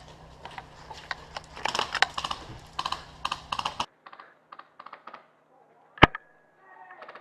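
Airsoft guns firing: rapid clicky shots in short bursts. About four seconds in the background drops away abruptly, leaving a few fainter clicks and one loud shot about six seconds in.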